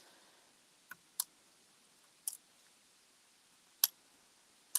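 About five light, sharp clicks spread out at irregular intervals: small paper-crafting pieces and a hand tool being handled on a table while adhesive backings are peeled off.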